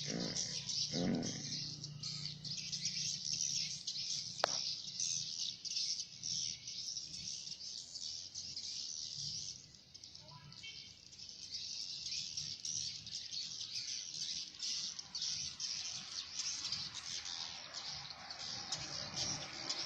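Dense, continuous high-pitched twittering of many swiftlets gathering at a swiftlet house, with a low steady hum underneath.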